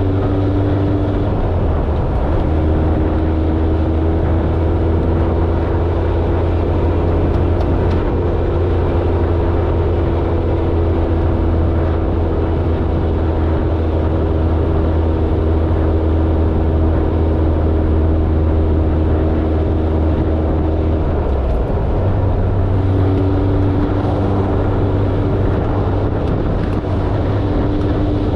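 Suzuki Samurai's engine running steadily under way. Its note steps to a new pitch shortly after the start, falls away about three quarters of the way through, and settles at another steady pitch.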